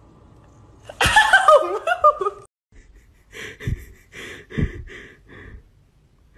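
A woman laughs in high-pitched giggles for about a second and a half. After a short break comes a run of softer, breathy puffs, about two a second.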